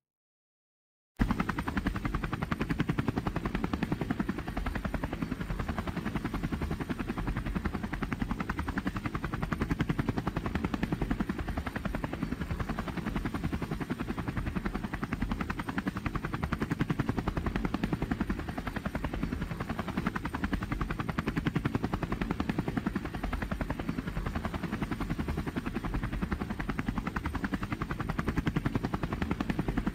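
Helicopter in flight, heard from inside the cabin: a steady, rapid rotor chop over engine noise. It cuts in suddenly about a second in.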